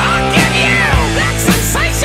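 Background rock music with distorted guitar and a steady drum beat of about two hits a second.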